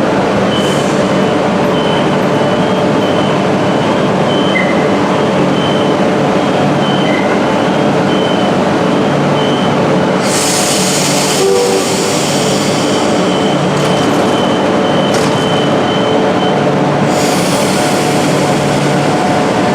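Queensland Rail electric multiple unit train running along the track, a steady loud running noise. A high hiss swells up about ten seconds in and again near the end.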